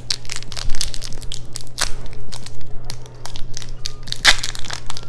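Crinkling and tearing of a KitKat's individual wrapper being pulled open by hand: a run of irregular sharp crackles.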